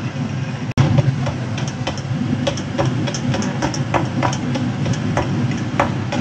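Eggs being beaten by hand in a ceramic bowl: a utensil clicks against the bowl in irregular taps, a few a second, over a steady low hum.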